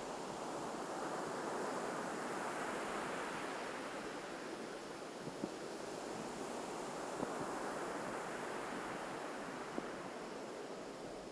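Waves breaking on a sandy beach, the surf swelling and easing in slow surges. A few faint clicks stand out over the wash.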